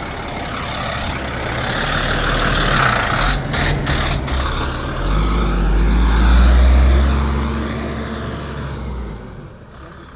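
A heavy truck engine driving past, swelling to its loudest about six seconds in, with its engine note rising as it speeds up, then fading away near the end.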